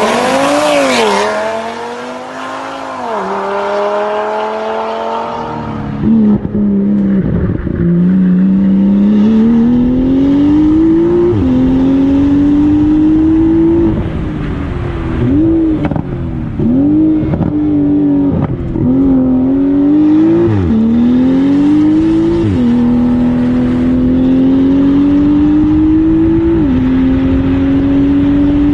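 Race car engines at full throttle. First a car goes past, its engine note rising and then falling away. About six seconds in, a car accelerates hard through the gears, its pitch climbing and then dropping sharply at each of many quick gear changes.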